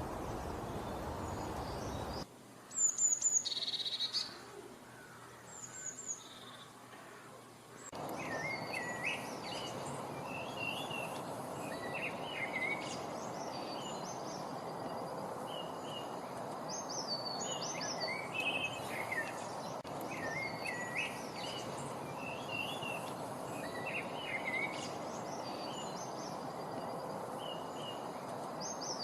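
Songbirds singing and calling over a steady rushing background. About two seconds in, the background drops out, leaving a few high chirps. About eight seconds in, the rushing returns along with short whistled phrases that repeat again and again.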